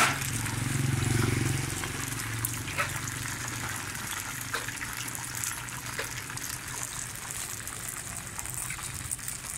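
Rice-flour cake cubes deep-frying in a wide flat pan of oil, making a steady sizzling hiss. A low rumble is strongest in the first two seconds, and a few faint clicks come through.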